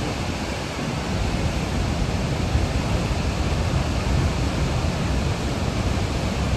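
Steady, unbroken rush of water at Niagara Falls, with a heavy low rumble.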